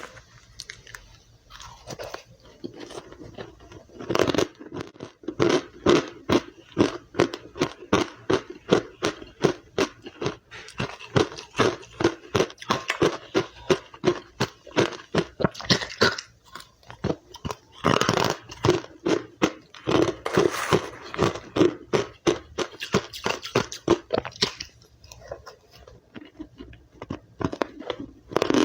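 Close-up crunching and chewing of powdery white ice with matcha, rapid bites coming several times a second, with brief pauses between mouthfuls.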